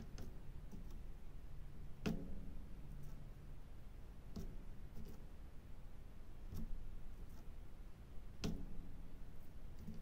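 Light, sharp clicks, one every couple of seconds and unevenly spaced, from a diamond-painting pen pressing resin drills onto the adhesive canvas.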